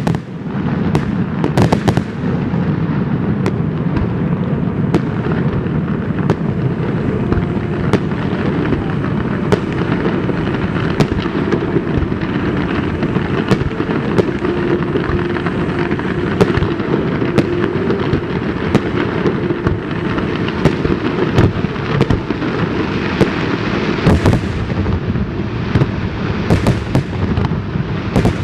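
Aerial fireworks display in a dense, continuous barrage: many sharp shell-burst bangs over a constant rumble, with no break.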